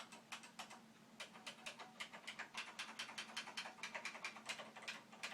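Unicomp Classic 101 buckling-spring keyboard being typed on: a fast, uneven run of sharp key clicks, about eight keystrokes a second.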